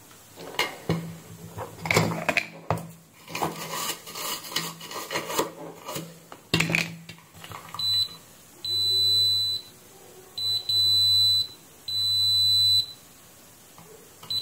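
Kaiweets KM601 digital multimeter's continuity buzzer beeping in a high tone: one short beep, then three beeps of about a second each, sounding whenever the probes close a connected path. Before the beeps, several seconds of scraping and tapping of the metal probe tips on the circuit board.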